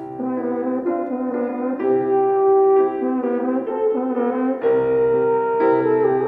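Double French horn playing a melody of held notes that change pitch every second or so, accompanied by a grand piano.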